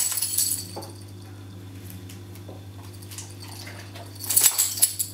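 Two short bursts of light clinking and rustling, one at the very start and one about four seconds in, over a steady low hum.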